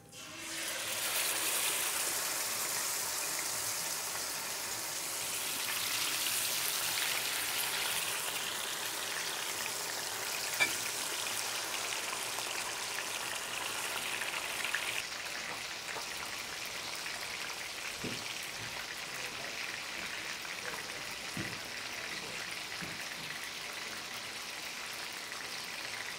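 Dorado (mahi-mahi) fillets sizzling in hot oil in a frying pan, starting suddenly as the fish goes into the oil and easing a little about halfway through. A single sharp click about ten seconds in.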